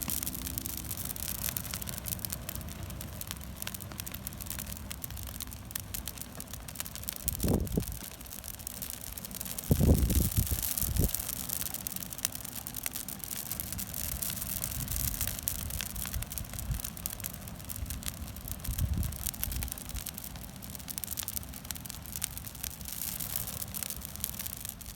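Large wood bonfire with a dead tree burning in it, crackling and hissing steadily. Wind buffets the microphone in low rumbles, with strong gusts about seven and ten seconds in.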